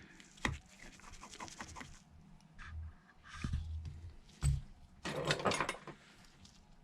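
Small clicks, ticks and scrapes of a precision screwdriver working screws out of an iPhone 11's battery connector plate. A dull knock comes about four and a half seconds in, then a brief rustling scrape.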